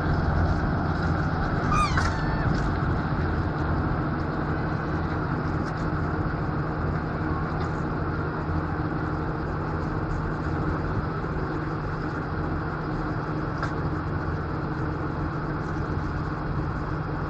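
Fendt 716 tractor's six-cylinder diesel engine running steadily under ploughing load, pulling a four-furrow Överum plough, growing slightly fainter as the tractor moves away.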